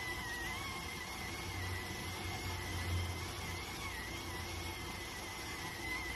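Electric steam cooker (電鍋) cooking: steam escaping with a thin, high, wavering whistle over a steady hiss, with a low rumble from the boiling water that swells in the middle.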